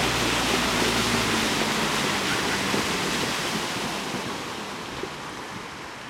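Water splashing and rushing as a Nissan Navara PRO4X pickup drives through a shallow river crossing, with a low engine hum under it at first. The splashing fades gradually over the second half.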